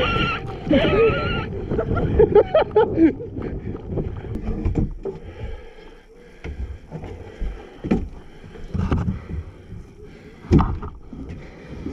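Body and tactical gear bumping and scraping against the carpeted inside of a boat hull while crawling through a small hatch. It gives scattered hollow knocks and rustling, with a sharp knock near the end. Indistinct voices are heard at first.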